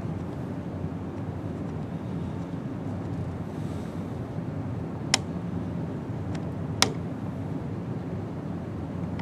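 Steady low background room noise, with two sharp clicks about five and almost seven seconds in.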